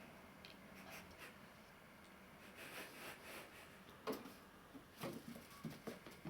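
Faint scratching and rubbing of a kitten's paws and claws at play with a ball of yarn, with several soft taps and knocks in the second half.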